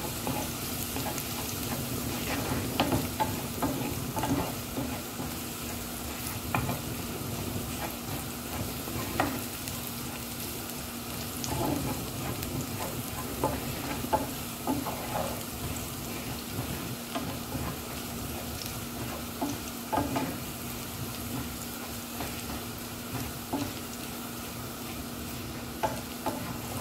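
Minced garlic sizzling in olive oil in a non-stick frying pan, sautéing toward golden brown, while a wooden spatula stirs it with short scraping and tapping strokes against the pan. A steady low hum runs underneath.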